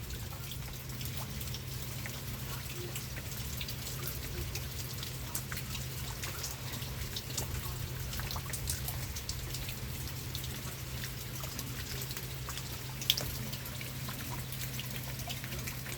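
Steady rain with scattered drops tapping, and one sharper tap about thirteen seconds in, over a low steady hum.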